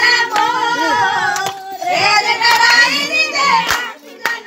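A group of people singing together, several voices holding long, wavering notes, with two sharp knocks near the end.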